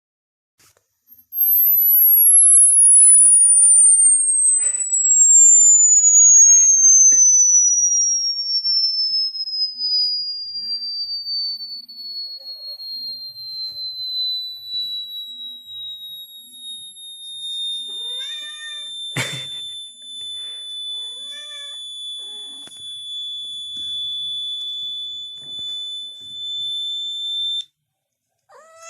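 A loud electronic test tone starts very high and glides slowly downward, levels off, then cuts off suddenly near the end. A cat meows a few times in the second half, and there is one sharp click.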